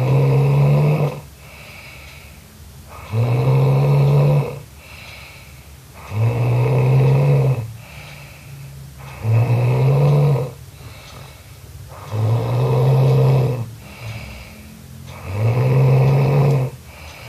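A sleeping person snoring loudly: six long, low, rasping snores about three seconds apart, each lasting a little over a second, with quieter breaths between them.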